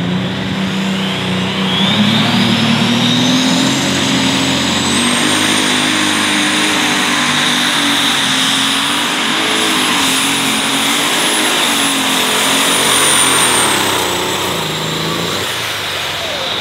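Light Super Stock pulling tractor's turbocharged engine at full throttle under load during a pull. It revs up about two seconds in as a high turbo whine climbs, holds at high revs with the pitch wavering, then the whine and engine fall away near the end as the pull winds down.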